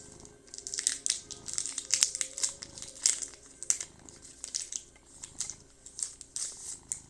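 Foil wrapper of a Pokémon booster pack crinkling as it is handled and opened, a run of irregular crackles starting about half a second in.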